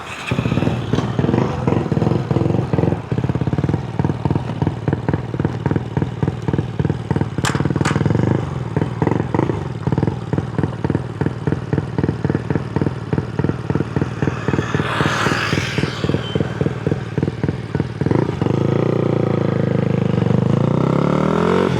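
Honda Grom's single-cylinder four-stroke engine, bored out to about 149 cc with a four-valve head, running with a steady even beat, then rising in pitch as it revs up near the end.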